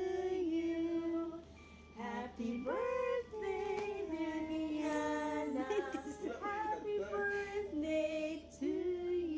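A song with a singing voice, which sounds like a woman's, holding long notes over music.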